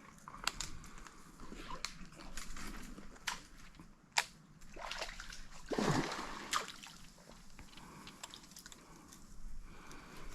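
Small water splashes and sloshing, with scattered light clicks and knocks and one louder swoosh about six seconds in.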